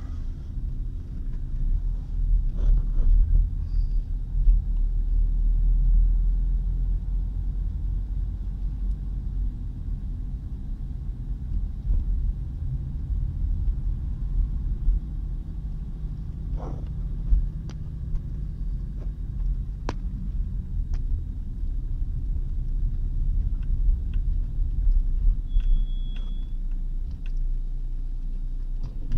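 Steady low rumble of a car driving on a town road, heard from inside the cabin: engine and tyre noise, with a few faint clicks and a brief high tone near the end.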